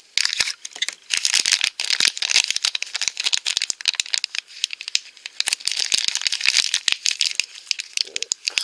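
A crinkly plastic blind bag being handled and picked at with fingernails to open it: a dense, continuous run of crackles and rustles.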